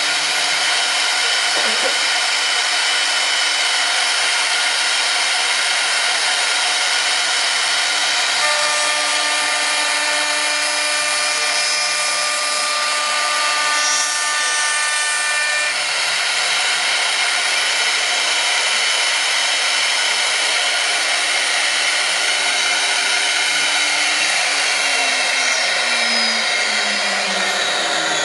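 Automatic CNC wood lathe cutting a wooden blank: the air-cooled cutting spindle runs with a steady whine over the noise of wood being cut. A set of extra steady tones comes in for several seconds midway, and a low tone drops in pitch near the end.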